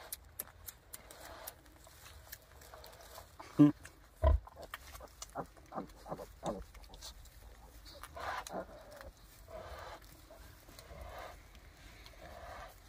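Farrowing sow grunting in a run of short grunts while her newborn piglets nurse. The loudest two come about four seconds in, with softer grunts later on. The owner takes her sounds as a sign another piglet may be on the way.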